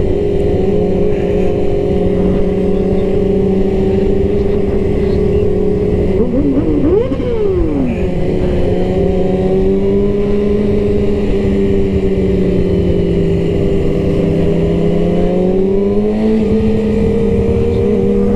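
Sport motorcycle engine running at a steady cruise, heard from the saddle with wind noise. About seven seconds in, another engine briefly revs up and drops back. Near the end the main engine note dips a little, then rises as the bike accelerates.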